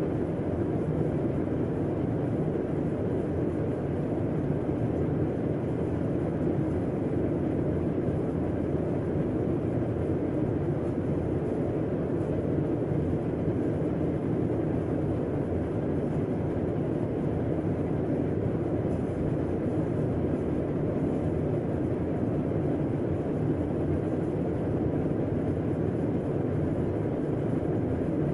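Air conditioner running: a steady, even low hum and rush of air that does not change.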